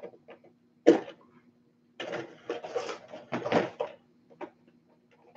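Metal body clips being pulled off an RC truck and its Lexan body being handled: small clicks, then a sharp knock about a second in, then a couple of seconds of rustling and clattering.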